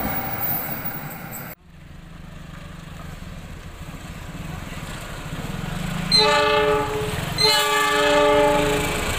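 Coaches of a passing train rumble on the rails, and the sound cuts off abruptly. Then a KAI CC 206 diesel-electric locomotive drones as it approaches and sounds its horn in two blasts, the second a little longer.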